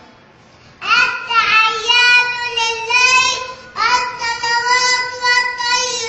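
A small boy's high voice chanting a prayer recitation in long, drawn-out melodic notes: two phrases with a short breath between them.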